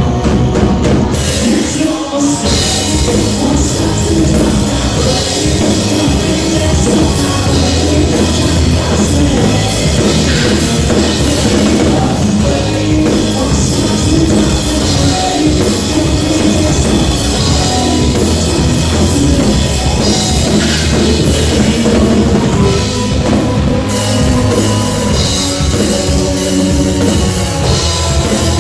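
Loud rock band playing, with a full drum kit driving a steady beat.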